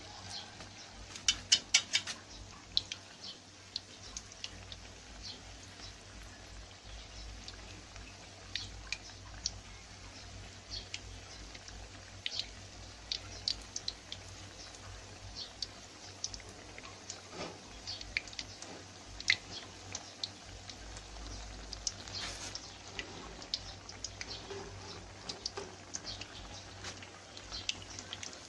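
Battered tuber and pumpkin slices deep-frying in hot oil in an aluminium wok: a steady sizzle with scattered sharp pops and crackles. A quick run of louder clicks comes about a second in.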